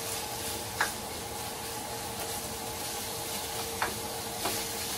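Ground pork frying with onion and garlic in a nonstick pan, a steady sizzle as a spatula breaks up and stirs the meat, with two short clicks of the spatula against the pan.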